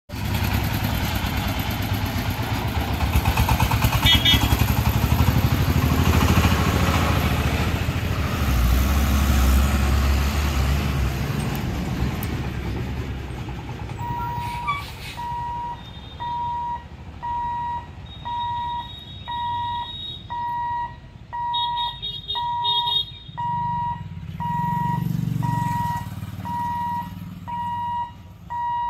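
Road traffic, a bus among it, rumbling past. About halfway through, a level-crossing warning beeper starts, one steady electronic beep about every second, warning that the gate is closing for an approaching train. Near the end a motorcycle engine passes.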